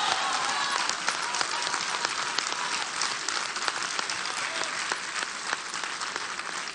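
A crowd applauding, the clapping gradually dying down.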